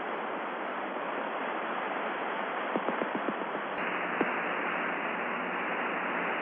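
Steady hiss of an open air-to-ground radio channel between transmissions, with a few faint clicks near the middle and a click a little under four seconds in where the hiss changes slightly.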